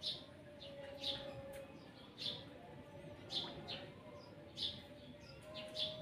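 Asian pied starling (jalak suren) giving short, faint chirps, about one a second.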